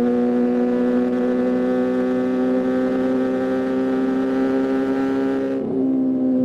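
Kawasaki ZX-25R's 250cc four-cylinder engine running at high, steady revs through a DX Generation Pro Race aftermarket exhaust, its pitch creeping slightly upward. A little before the end the note dips briefly and loses its top edge, then holds a slightly lower steady pitch.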